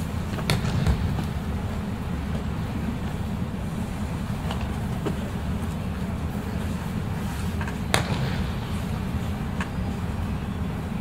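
Steady low rumble of a large hall with a few sharp slaps on tatami as aikido practitioners throw and fall. The loudest slap comes about eight seconds in.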